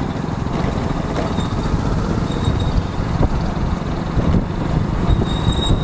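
Motorcycle on the move in city traffic: steady engine and road noise under a heavy, fluttering wind rumble.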